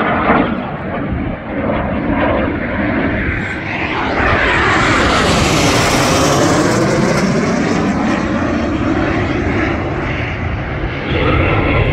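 Airplane engine noise as the aircraft passes by, swelling about four seconds in and staying loud through the middle with a sweeping, phasing roar.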